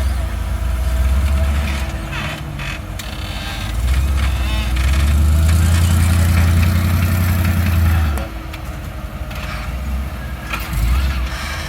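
Off-road vehicle engine running under load with a deep, low drone. It swells twice and eases off in between.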